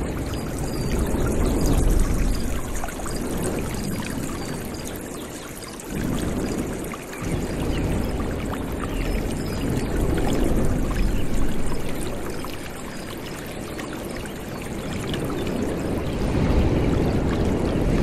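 Forest stream running, a steady rush of flowing water.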